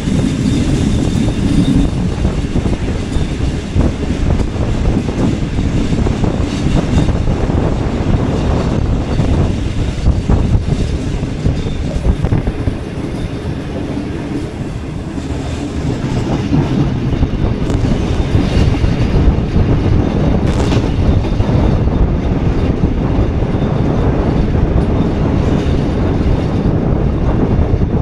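Awam Express passenger train running, heard from on board: a steady rumble and clatter of the coaches' wheels on the track. It eases off a little about halfway through, and there is one short sharp knock a few seconds later.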